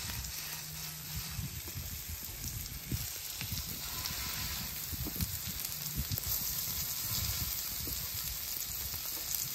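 Seasoned salmon fillets sizzling in butter and avocado oil on a hot Blackstone flat-top griddle as they are laid down flesh side first, one after another.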